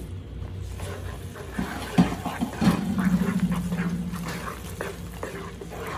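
Wooden spatula stirring thick, freshly cooked semolina halwa in a nonstick pot: irregular wet squelching and scraping strokes, with a low drawn-out sound for a couple of seconds near the middle.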